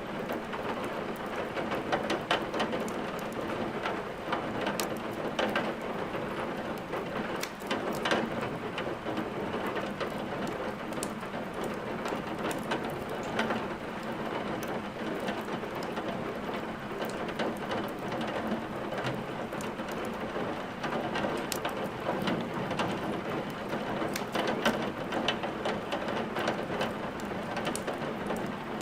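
Steady rain falling, mixed with a crackling wood fire in a fireplace that gives frequent sharp pops and snaps.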